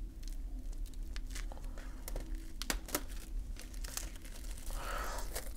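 Clear plastic shrink wrap being torn and peeled off a Blu-ray box set, crinkling with many small, irregular crackles.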